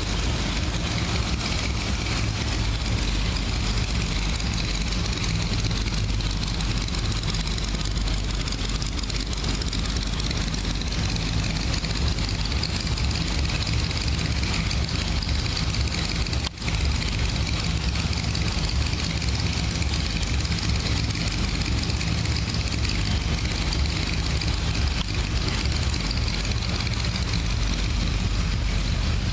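Corvette Stingray's V8 idling steadily through a custom exhaust, with a low, even note and a brief break about halfway through.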